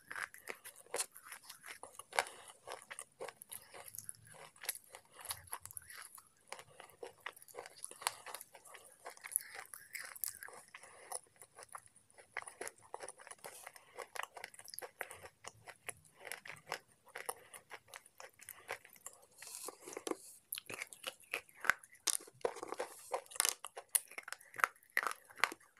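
Slate pencils being bitten off and chewed: a steady run of sharp, dry crunches and small snapping clicks, one after another.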